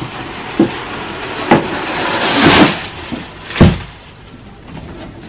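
Handling noise from a big gift box being opened: a few sharp knocks, a brief tearing or rustling swell, and a heavy thump about three and a half seconds in.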